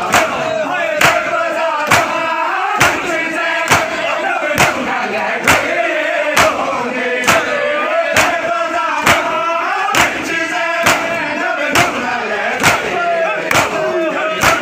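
Crowd of men performing matam: many bare hands striking bare chests together in unison, one sharp slap about every second, with the men chanting between the strikes.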